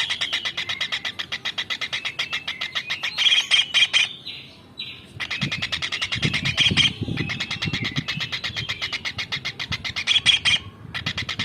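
Small kingfisher (tengkek udang) calling in a long, rapid trill of sharp, high notes repeated many times a second, with a pause about four seconds in and a brief break near the end.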